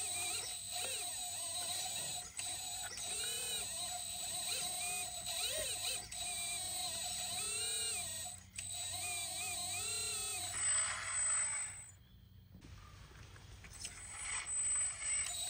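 Electric hydraulic pump and motors of a 1/14-scale RC excavator whining as the boom and bucket work, the pitch rising and falling in repeated arcs every second or two over a steady high hum. A rougher, noisier stretch comes about ten seconds in, then the sound dips briefly.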